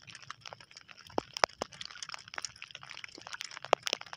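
Irregular sharp clicks and taps, several a second, over a faint steady hiss.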